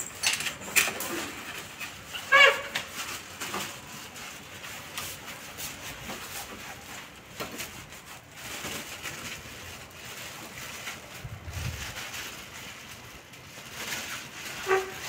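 German shepherd being scrubbed with a wet cloth during a bath: rubbing and handling noises, with a short whine about two seconds in and another whine starting near the end.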